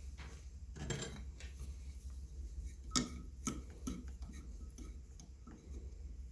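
Scattered metallic clinks and knocks as a piece of steel is worked by hand to break it off, the sharpest strike about three seconds in, over a steady low hum.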